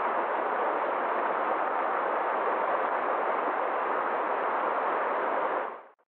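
Stream rushing over rocks: a steady rush of running water that fades out near the end.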